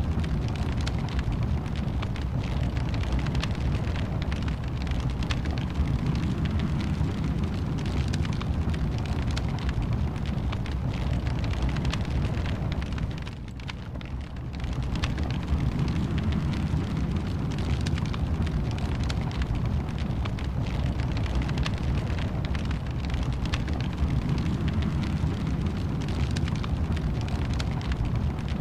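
Wood fire crackling in a fireplace: a steady low rumble with frequent sharp pops and crackles, briefly quieter about halfway through.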